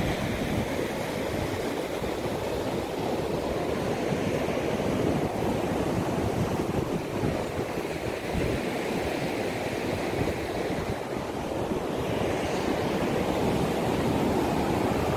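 Steady rushing of surf breaking on a sandy beach, mixed with wind buffeting the phone's microphone.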